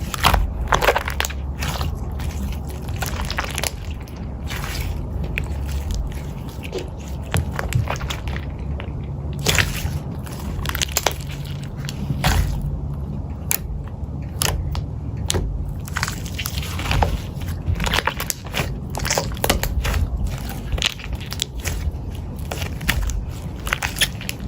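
Eating sounds: irregular crunches and sharp clicks throughout, over a low steady rumble.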